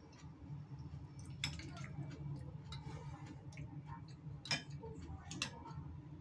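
A spoon clicking and clinking against a plate while eating, with sharp clinks about a second and a half in and twice near the end, over a steady low hum.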